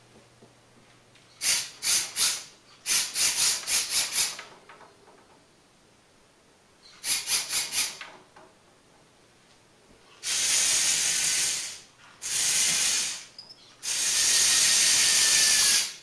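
Small electric motors from a salvaged remote-control toy car run a craft-stick model crane. They start in quick blips: three, then six, then four short pulses. They then run three times for about one to two seconds each.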